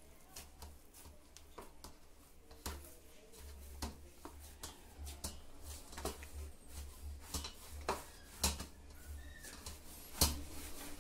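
Pita bread dough being kneaded by hand in a steel plate: irregular soft presses and slaps with scattered light clicks and taps against the metal, and one louder knock near the end.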